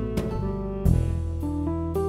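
Background music: an instrumental track with plucked guitar-like notes over a steady beat.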